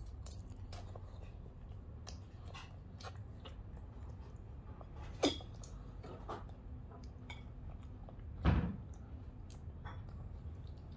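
Small children eating instant fried noodles: quiet chewing, with plastic forks scraping and clicking against a ceramic plate. A sharp click comes about five seconds in, and a louder dull thump a few seconds later.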